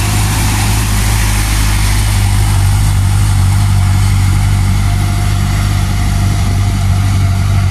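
Hino Dutro light dump truck's diesel engine pulling steadily uphill under load, a loud, even low drone with no gear changes.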